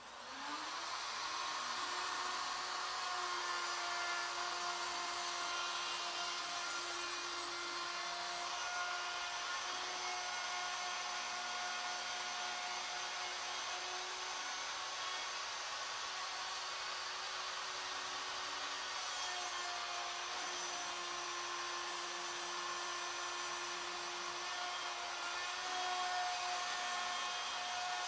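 Wood router on a CNC ornamental mill spinning up in the first half second, then running with a steady whine as the program mills a square tapered wooden leg.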